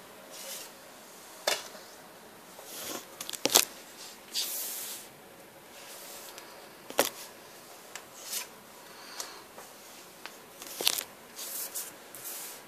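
Trading cards being handled and laid on a wooden tabletop: sharp taps of card on wood a few seconds apart, with short rubbing and sliding swishes between them.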